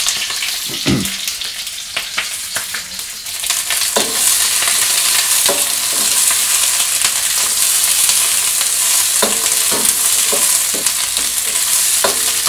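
Bell peppers and onions sizzling in hot oil in a wok while a metal wok spatula scrapes and knocks against the pan as they are tossed. The sizzle grows louder about three and a half seconds in, and the spatula knocks come every second or two.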